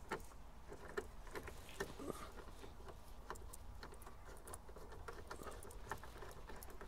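Faint, irregular small clicks and taps of screws and a hand tool being worked into the gauge cluster in a pickup's dashboard.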